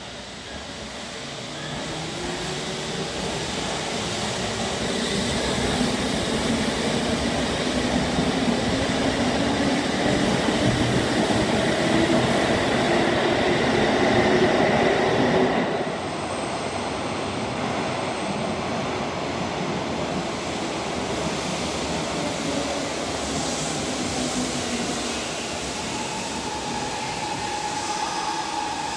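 Electric train pulling out of an underground station, with the silver, red-striped body of a Sanyo Electric Railway train: its traction motor whine rises steadily in pitch as it accelerates past, over rumbling wheel and rail noise that grows louder. Just past halfway this cuts off abruptly to a steadier, quieter train rumble, and a steady whine enters near the end.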